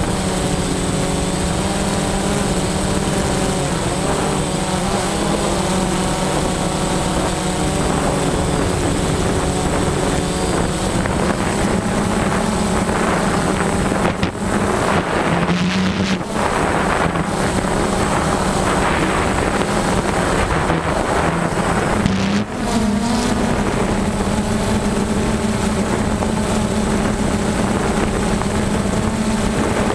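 DJI Phantom quadcopter's motors and propellers buzzing steadily, heard from the drone itself, with wind buffeting the microphone. The pitch dips and shifts briefly near the middle and again about three quarters through as the motors change speed.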